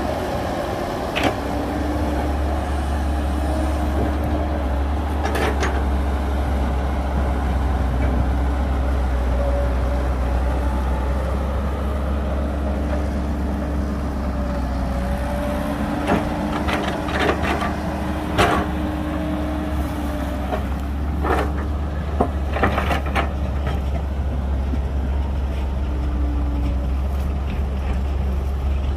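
Heavy diesel machinery running steadily with a deep rumble, a faint tone that comes and goes over it, and scattered knocks and clanks, more frequent in the second half.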